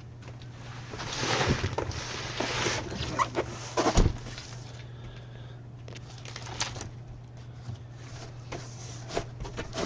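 Large cardboard box being opened by hand: a stretch of rustling and scraping cardboard, a sharp knock about four seconds in, then scattered light clicks and taps as it is handled. A steady low hum runs underneath.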